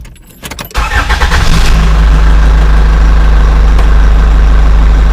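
Chevrolet Tahoe V8 engine starting about a second in and then running steadily at idle. The engine has a severe misfire.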